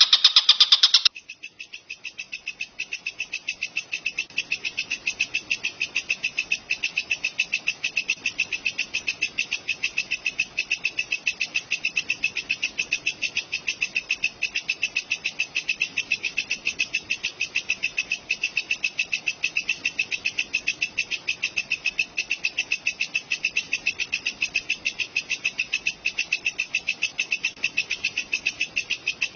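Walang kecek (katydid) calling in a steady, fast, evenly pulsed rhythm, high-pitched and unchanging. It is preceded by a louder, different call that cuts off abruptly about a second in.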